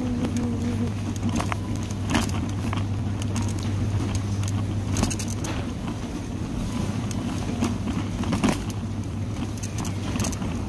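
Shopping cart wheels rolling over a supermarket floor: a steady low rumble, with a few sharp clicks and rattles from the cart.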